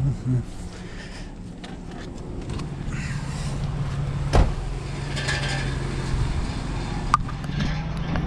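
A car door slams shut about four seconds in, over a steady low hum of a vehicle engine, with a smaller click near the end.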